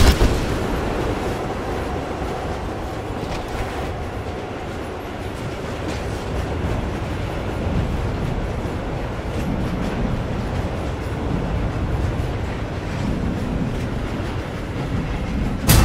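Steady rumble and rattle of an underground train running, heard from inside the carriage, swelling and easing slowly. A sudden loud hit comes just before the end.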